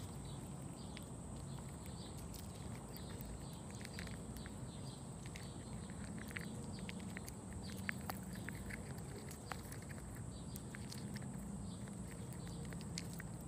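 Faint scattered light clicks and patter over a steady low hiss and a faint constant high whine.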